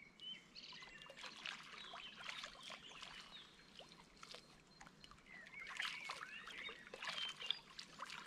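Faint water sloshing and dripping, with scattered short bird chirps.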